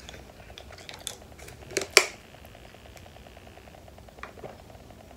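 Plastic water bottle being handled and drunk from: scattered clicks and crackles, with one sharp crack about two seconds in, then the bottle is tipped up to drink.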